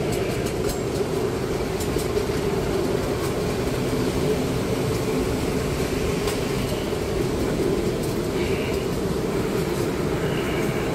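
Miniature ride-on park train running along its track: a steady running noise with a low hum and a few light clicks.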